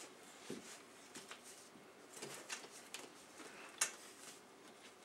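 Faint, irregular crunching and chewing of saltine crackers, with one sharper click about four seconds in.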